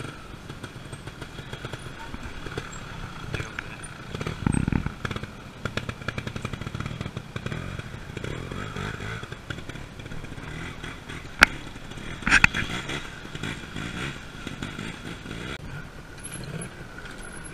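Trials motorcycle engine running at low revs on a descent, with a short burst of throttle partway in and a single sharp knock near the middle.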